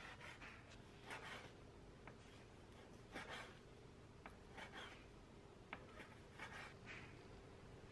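Chef's knife cutting raw pork belly into small cubes on a wooden cutting board: faint, irregular slicing scrapes and light knocks of the blade on the board, roughly one or two a second.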